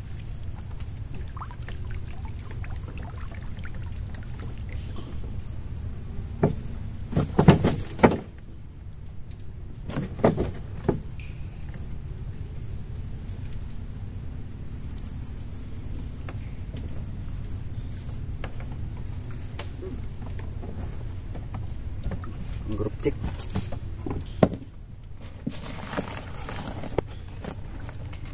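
A steady, high-pitched insect trill that runs unbroken and stops about three-quarters of the way through, over a low rumble. A few sharp knocks and thumps of handling in a small boat come around a quarter of the way in, again a little later, and once where the trill stops.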